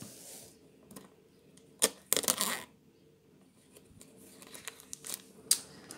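Plastic shrink wrap on a cardboard booster box being handled and cut with scissors: scattered sharp clicks and a short rustle about two seconds in.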